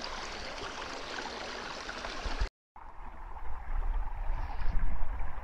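Shallow river running steadily over a pebbly bed, cut off abruptly about two and a half seconds in. After a short gap the water sounds duller and closer, with a low rumble growing toward the end.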